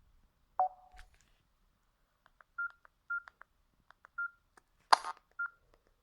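Samsung mobile phone keypad: short key beeps, four at one pitch, with small button clicks between them and one louder click near the end, as the menu is worked between ringtones.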